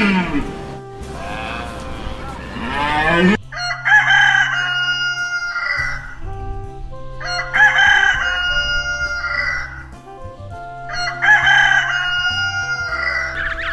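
A rooster crowing three times, each crow lasting about two seconds, over soft background music. The crowing is preceded by a couple of drawn-out animal calls.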